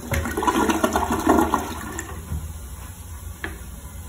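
American Standard Cadet 3 toilet flushing: water rushing and swirling out of the bowl, loudest in the first second and a half, then dying down to a quieter, steady flow. A single sharp click comes about three and a half seconds in.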